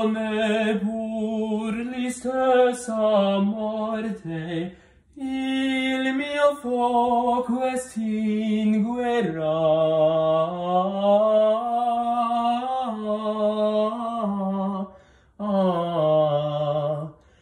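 A man singing an Italian aria unaccompanied in classical style, with vibrato on long held notes. He sings in three phrases with short breaths between them, about five seconds and fifteen seconds in, and the melody dips lower in the middle phrase.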